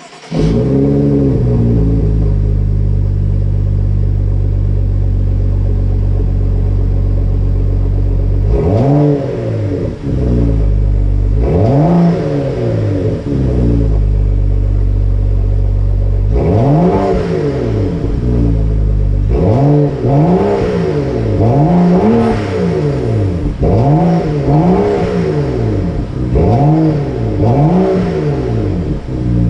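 BMW 335i's N55 turbocharged inline-six through a Corsa cat-back exhaust: it starts with a brief flare, settles to a steady idle, then is revved in about ten short blips, a few spread out and then several in quick succession near the end.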